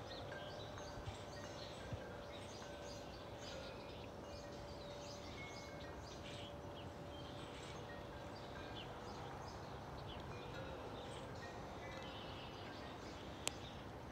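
Faint, steady low rumble of a Boeing 777-200 airliner passing over at cruising altitude. Small birds chirp over it, and a wind chime's ringing tone fades away in the first half. A single sharp click comes near the end.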